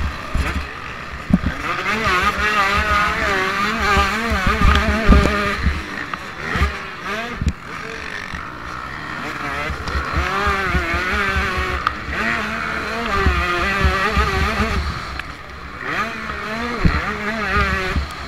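Motocross bike engine racing at high revs, heard from on board, its pitch rising and falling over and over with throttle and gear changes. Low thuds are scattered through.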